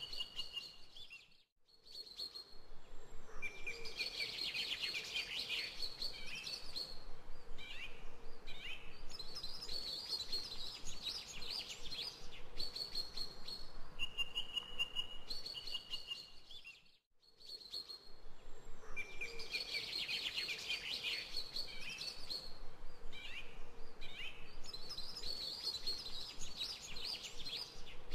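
Recorded birdsong used as a background track: bursts of high chirps and trills over a faint steady hiss. The same stretch repeats about every fifteen seconds, with a brief drop-out between loops.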